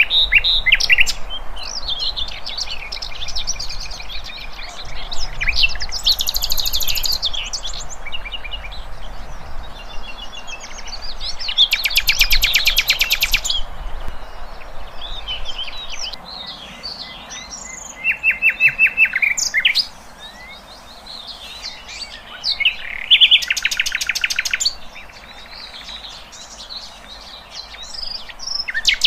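Several wild birds singing and calling together: a steady run of chirps and whistles, broken by a few fast rattling trills, the longest about two seconds around twelve seconds in.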